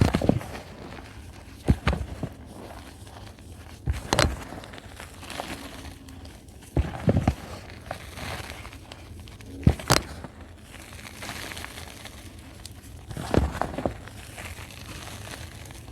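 Reformed chalk being bitten and chewed: a sharp crunching snap every two to three seconds, with softer crumbly chewing in between.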